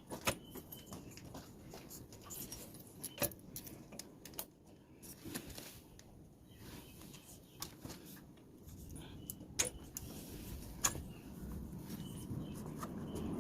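Metal tools and engine parts clinking and knocking as a CG 150 motorcycle engine is taken apart to remove its cylinder. The sharp metallic clicks come irregularly, the loudest just after the start, at about three seconds, and twice near the ten-second mark, and a steady noise grows in near the end.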